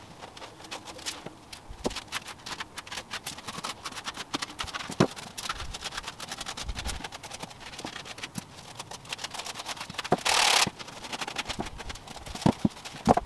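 Grey felt-like foam padding being pulled and torn by hand off a plastic car interior trim piece: a long run of small crackles and snaps as the fibres rip away, with a louder half-second burst of noise about ten seconds in. Near the end a stiff-bristled brush is worked over the wooden pallet.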